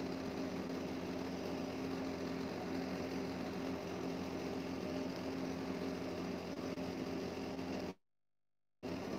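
A steady hum over an even hiss, cutting out completely for just under a second near the end before returning.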